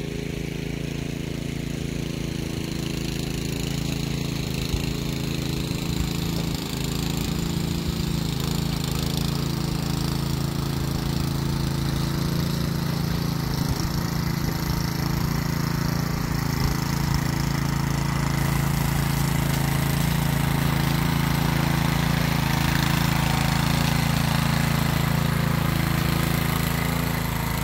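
Small gasoline engine of a rear-tine rototiller running steadily under load while tilling garden soil, growing gradually louder.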